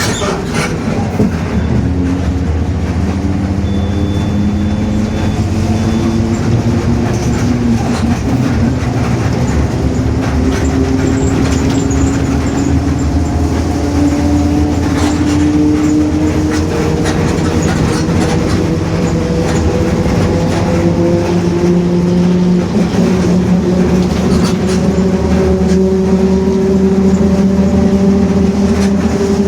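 Mercedes-Benz OF-1721 city bus under way, its differential growling: a whine with several tones that climb slowly in pitch, twice, over steady engine and road noise.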